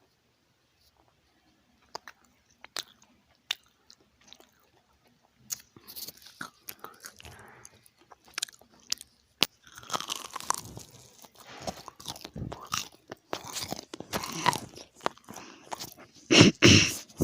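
Someone biting and chewing crunchy food: a few sharp crunches at first, then dense crunching from about a third of the way in that grows louder, with the loudest bite just before the end.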